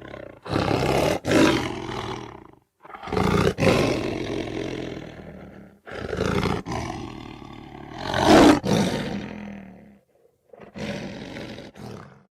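Lion roaring: four long roars in a row, each starting loud and tailing off, with short pauses between them and the last one shorter.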